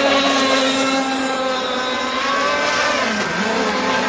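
Several large-scale RC racing boats with 26–35 cc two-stroke petrol engines running flat out in a race, one passing close by with a high, buzzing engine note. About three seconds in, the pitch drops briefly and then climbs again.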